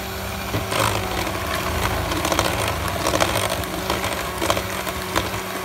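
Electric hand mixer running steadily, its twin wire beaters whisking plumcake batter in a glass bowl, with scattered sharp clicks over the steady hum.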